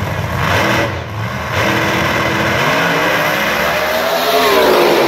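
Drag racing car's engine at full throttle as it accelerates down the drag strip, with a short dip about a second in; its pitch climbs and then drops away as the car passes close by near the end.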